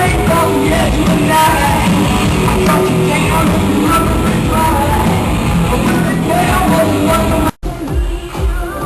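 Loud rock music with a singing voice. It cuts off abruptly near the end and gives way to different music with a heavy, pulsing bass beat.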